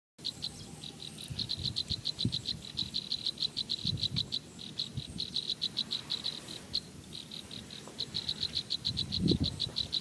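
Insect chirping: a fast, even train of high-pitched pulses, about eight a second, pausing now and then. A few low thumps sound underneath, the loudest near the end.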